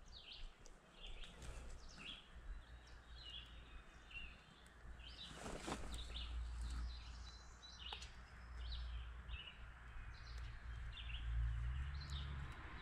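Several birds chirping and singing in short, scattered calls, over a steady low rumble that swells near the end. A soft click about six seconds in.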